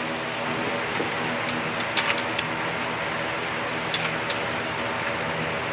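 Steady mechanical hum, like a shop fan running, with a few sharp light clicks and knocks of engine parts or tools being handled.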